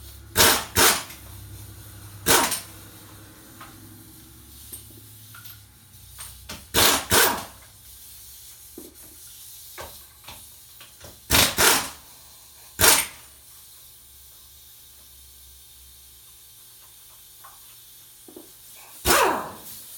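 A pneumatic air tool fired in short hissing bursts, about nine in all, some in quick pairs, while lug nuts come off a truck's six-lug wheel.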